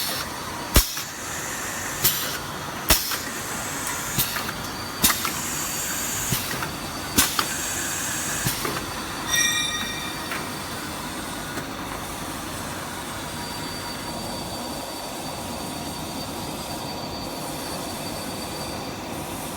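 Semi-automatic tube filling machine with a hot air gun heating system running. Its strokes give sharp clacks about once a second for the first half, over a steady hiss with a thin high whine. After that only the hiss and whine go on.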